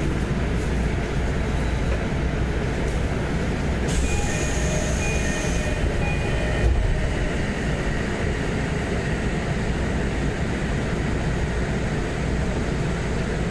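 Odakyu Line train door chime: a few short repeated tones about four seconds in, over a hiss of air from the door gear, followed by a thump. The uploader marks the chime as abnormal. A steady rumble of the train runs underneath.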